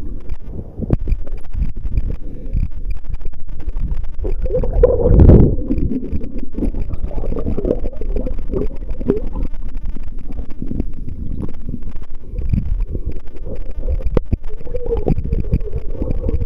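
Muffled underwater noise picked up by a camera submerged in seawater: a continuous low rumble and sloshing with scattered knocks against the housing, swelling loudest about five seconds in.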